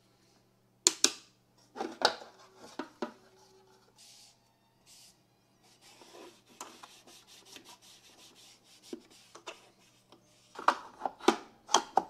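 A MagnaCut knife blade being stropped in separate scraping strokes. There are a few loud, sharp strokes early, then a run of quicker, fainter scrapes, and a burst of loud strokes near the end, with a faint steady hum underneath.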